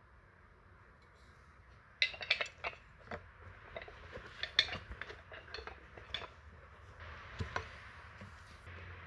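Steel Japanese chisels (nomi) clinking against each other as one is drawn out of a tool roll, a quick run of light clinks. Near the end come two sharper knocks as a steel-headed hammer is set down on the wooden beam.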